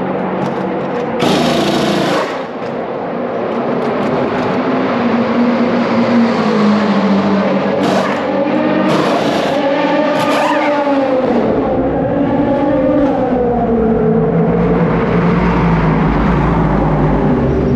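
Race car engines running and revving in a pit lane, with rising and falling pitch and a heavier low rumble setting in about two-thirds of the way through. Several short bursts of high hiss cut through, once near the start and a few times around the middle.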